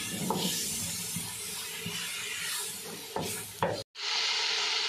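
A wooden spatula stirring chicken and vegetables in a hot wok, over a steady sizzle, with a few knocks of the spatula against the pan. After a short break, a louder sizzle as liquid seasoning is poured into the hot wok.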